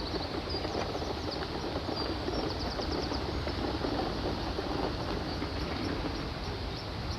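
Steady rumbling clatter of the tin works' water-driven wobbler and wheel machinery, over rushing water, with faint high chirps at times.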